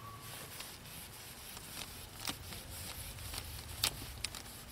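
Soft rubbing of plastic-jacketed electrical wire being pulled through a wet rag to wash it, with a few light clicks as the wire coils drop and tap together.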